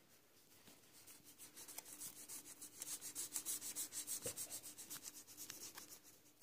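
Red felt-tip marker scribbling quickly back and forth on tissue paper, colouring in a paper heart: a rapid run of scratchy strokes, several a second, that builds up after a second or so and eases off near the end.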